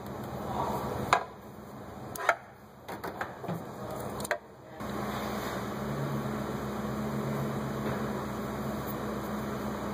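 Socket and wrench knocking against a metal fuel filter cap, a few sharp clicks and taps as the cap is torqued down. About five seconds in, a steady machine hum with a low drone starts suddenly and carries on.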